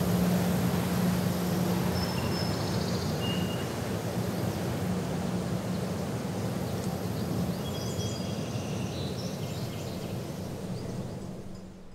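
Rushing wind with a steady low hum, a sound-designed drone flight, and a few short bird chirps around the middle. It all fades out near the end.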